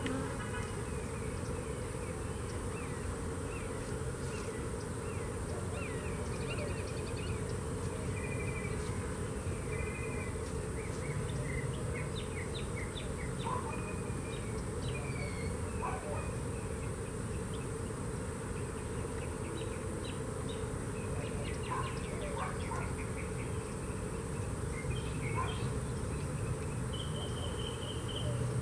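A colony of honey bees buzzing in a steady hum around an opened hive.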